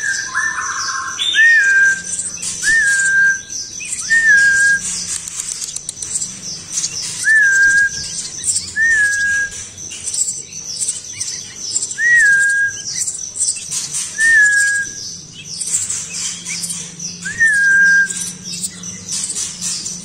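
Nestling Eurasian tree sparrows and a young sooty-headed bulbul chirping in a dense run of high, rapid begging calls. Over them, a clear whistled note that rises and then holds steady is repeated about eight times, one to three seconds apart.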